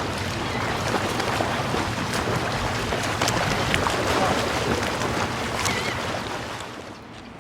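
Ocean surf washing onto a beach, mixed with wind on the microphone, a steady rushing noise that eases off near the end.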